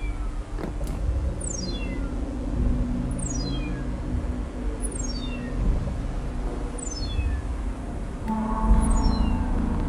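Electronic film sound design: a quick falling run of high pips repeats about every one and a half to two seconds over a low steady hum. Near the end a new layer of steady tones joins the hum.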